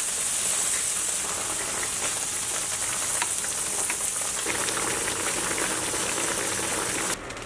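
Water boiling in a stainless steel pan of whole wheat linguine, a steady hiss. About four and a half seconds in, a lower bubbling of a rolling boil joins in, and the sound cuts off suddenly near the end.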